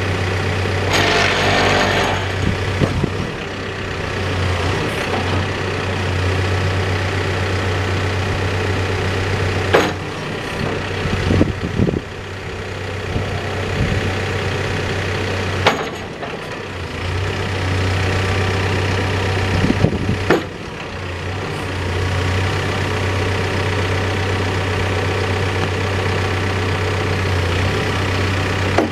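Backhoe's diesel engine running while its hydraulic attachments are cycled to circulate the hydraulic fluid. The engine note dips and recovers as the hydraulics load it, with a brief hiss about a second in and several sharp clunks from the boom and bucket along the way.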